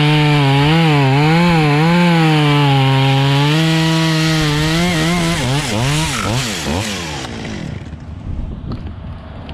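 Two-stroke chainsaw cutting through a tree trunk at full throttle, its engine note dipping and recovering as the chain bites. Around five seconds in the revs swing up and down quickly a few times, then the engine note falls away as the cut finishes and the block comes free.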